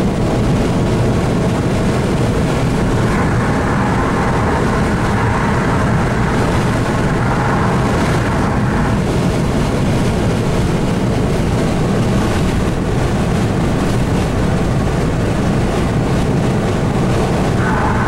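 Steady road noise inside a car cabin driving at highway speed.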